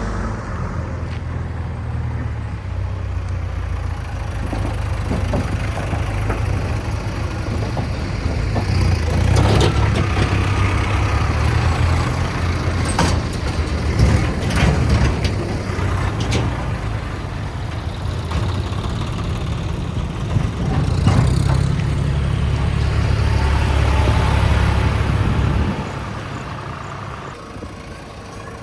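Diesel engine of a JCB 3DX backhoe loader working, its note rising and falling with load, with several sharp clanks and knocks in the middle. The engine eases off near the end.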